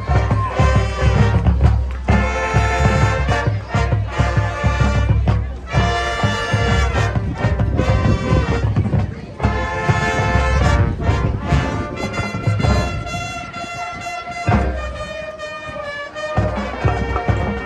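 High school marching band playing its halftime show: brass chords over heavy, pulsing drums. About two-thirds of the way in the music thins to a softer passage, the drums dropping out briefly before the full band comes back in near the end.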